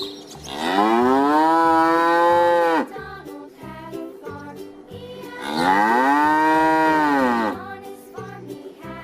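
A cow mooing twice, each moo a long call of about two seconds that rises in pitch, holds, then drops off at the end, with a few seconds between them. Light background music runs underneath.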